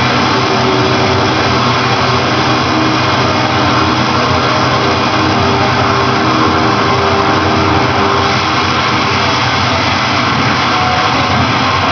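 A loud, dense, unbroken wall of harsh amplified electronic noise with a few faint held tones buried in it, the sort of sound a harsh-noise set makes.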